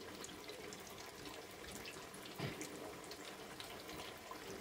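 Spring rolls deep-frying in hot oil in a wok: a faint, steady sizzle full of small crackles, with one soft knock about halfway through.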